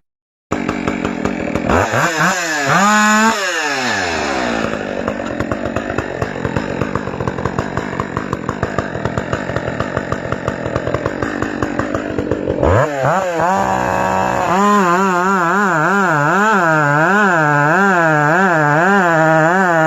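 Two-stroke chainsaw cutting wood, loud. It revs up about two seconds in, drops back and runs steadily through the cut, revs again past the middle, then its pitch rises and falls rhythmically, about one and a half times a second, as it works under load.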